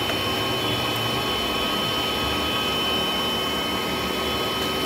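Steady rushing noise of a running fan, with faint steady high whines over it.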